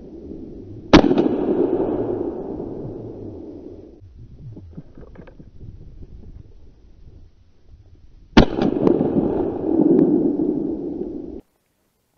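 Two shots from an MP-155 semi-automatic shotgun fired at black grouse in flight, about seven seconds apart. Each is a sharp crack followed by a long echo that rolls away over about three seconds, with faint rustling between the shots.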